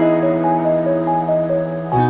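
Background music: a gentle keyboard tune with short melody notes over sustained chords.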